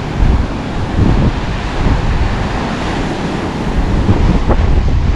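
Ocean surf washing onto the shore, with wind rumbling on the microphone.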